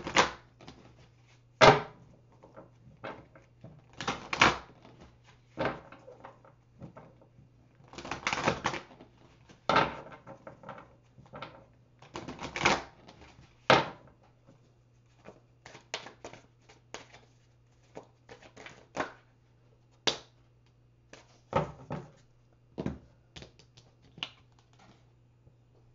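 Oracle or tarot cards being handled on a table: irregular sharp clicks, snaps and taps, some in quick clusters, over a faint steady low hum.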